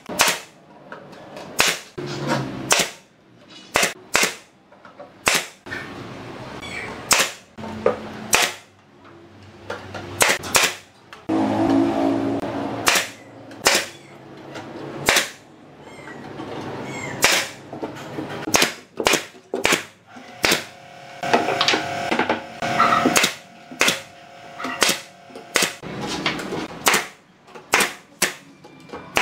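Pneumatic nail gun firing nails into plywood and timber formwork: dozens of sharp shots at irregular intervals, sometimes two in quick succession.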